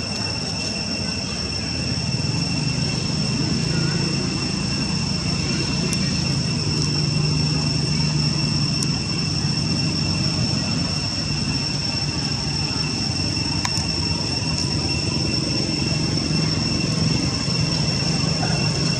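Steady high-pitched drone of insects, with a low rumble underneath.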